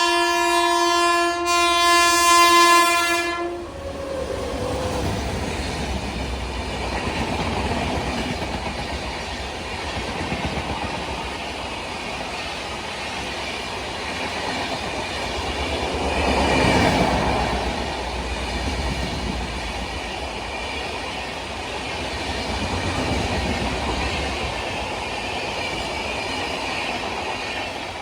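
Indian Railways locomotive horn blasting loud and steady, cutting off about three and a half seconds in, then a passing train's wheels rumbling over the rails, swelling loudest about halfway through.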